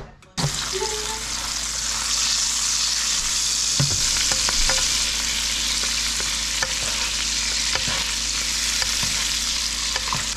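Whole skin-on brook trout frying in bubbling butter in a pan: a steady sizzle, with a few light clicks of a basting spoon against the pan.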